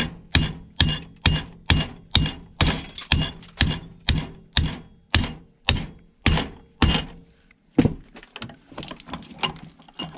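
Steady hammer blows on a metal electric-motor housing, about two a second, each ringing briefly, driving the armature out. The blows stop after about seven seconds, with one more near eight seconds and then lighter clicks and rattles as the part comes loose.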